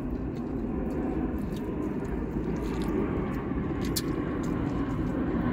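Soft chewing with scattered small crisp clicks from eating fried chicken and handling its paper wrapper, over a steady low rumble inside a car's cabin.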